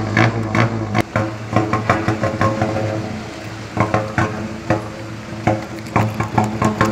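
Mitsubishi Fuso truck running through a remote-controlled "singing" exhaust: a steady droning note broken by quick, irregular bursts, which thin out briefly about three seconds in.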